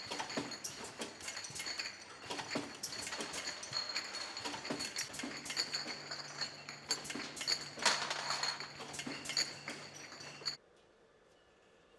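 Empty glass beer bottles clinking against one another as they jostle on a bottling line's rotary table, over a steady high machine whine. The clatter cuts off suddenly near the end.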